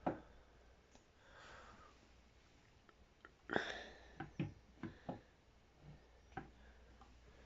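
Light knocks and clicks of handling, about half a dozen in quick succession around the middle, the loudest about three and a half seconds in, with a soft sniff or breath between them.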